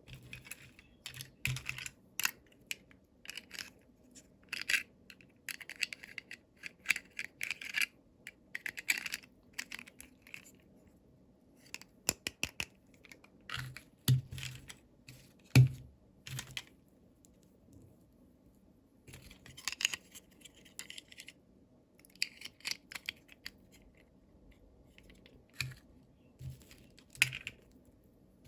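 Close-up handling of miniature doll toy packaging: stop-start scratching, rustling and tearing with small sharp clicks, and two soft thumps around the middle.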